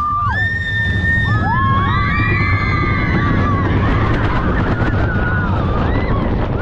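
Riders on the Giant Dipper wooden roller coaster screaming in several long, overlapping cries as the train drops, mostly in the first few seconds. Under them is a steady low rumble of the train running on the wooden track, mixed with wind.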